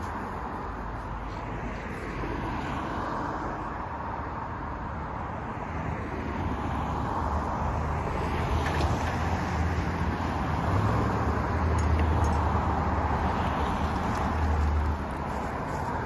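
Road traffic: cars driving through an intersection, growing louder in the second half and dropping off shortly before the end.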